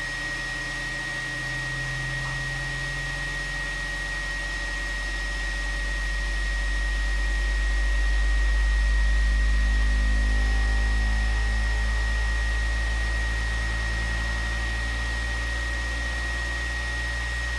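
Two Trees SK1 CoreXY 3D printer running its input-shaper resonance calibration: the print head is shaken rapidly to measure the machine's wobble, making a steady buzzing hum. The buzz swells to its loudest about halfway through and then eases off, over a thin high whine.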